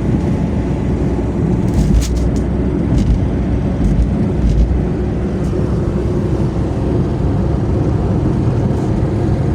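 Daewoo Matiz cruising on the highway: steady engine and road noise, with a few low thumps between about two and five seconds in.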